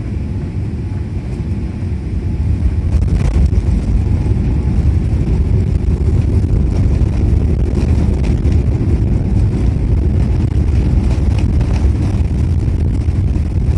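Boeing 787-8 cabin noise on the landing roll just after touchdown: the steady low rumble of the landing gear on the runway and of the engines, growing louder about three seconds in.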